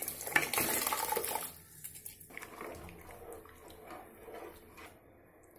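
Wet, soaked rice poured from a steel bowl into a steel pot of water, splashing for about a second and a half. Then fainter scrapes and light clinks as a wooden spatula stirs the rice in the pot, dying away about a second before the end.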